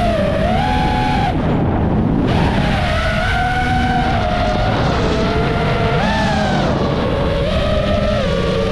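FPV quadcopter's brushless motors whining, the pitch sliding up and down as the throttle changes, over a steady rush of noise.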